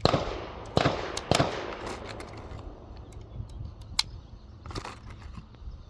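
Ruger pistol fired three times about half a second apart, each shot trailing off in echo, then a single sharp click about four seconds in.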